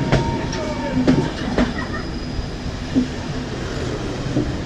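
Passenger train running on the rails: a steady rumble of wheels with irregular sharp clanks and clicks, about five of them.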